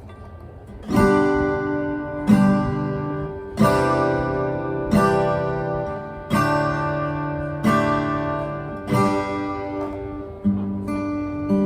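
Cort L710F acoustic guitar being strummed, one chord about every second and a half, each left to ring out before the next. It starts about a second in.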